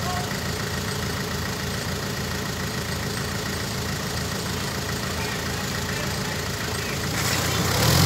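Mobile crane's diesel engine idling steadily, growing louder and harsher in the last second.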